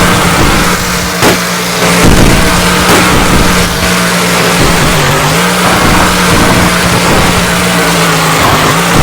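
Monster truck engine running hard at high revs, holding a steady loud note that dips briefly about five seconds in. A few sharp knocks come in the first three seconds.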